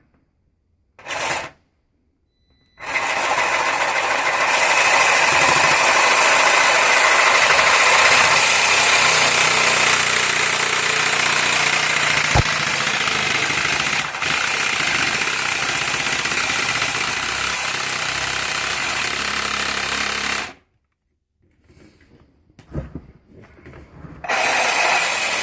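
Milwaukee Sawzall reciprocating saw cutting through a sump pump discharge pipe, running steadily for about seventeen seconds and then stopping. A short burst comes about a second in, and another near the end.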